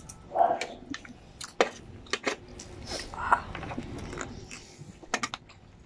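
Close-up mouth noises of a man eating grilled chicken feet: chewing, sucking and lip-smacking with many sharp wet clicks and a few louder smacks.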